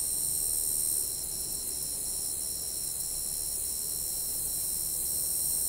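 Night insects, crickets, trilling in a steady high-pitched chorus that pulses on and off at a regular pace, over a constant hiss.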